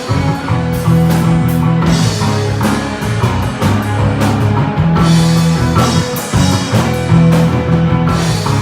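Live rock instrumental by a trio of bass guitar, guitar and drum kit, with long held bass notes under steady drum hits.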